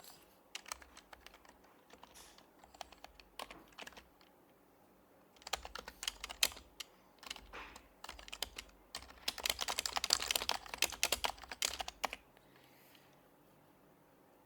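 Typing on an HHKB Professional HYBRID Type-S keyboard with its silenced Topre switches: keystrokes come in short bursts, with the fastest run about nine seconds in, then the typing stops a couple of seconds before the end.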